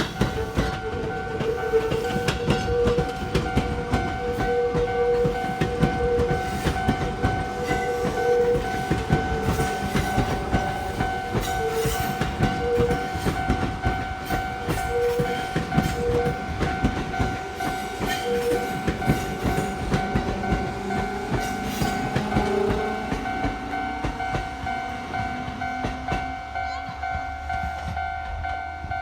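An electric train passing over a railway level crossing, its wheels clattering over the rails. Under it the crossing's warning signal sounds a steady two-tone ring that stops at the very end.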